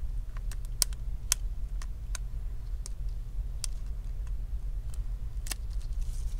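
Scattered light clicks and ticks of a metal pry tool working a small plastic bracket loose from an iPhone X screen, over a steady low hum.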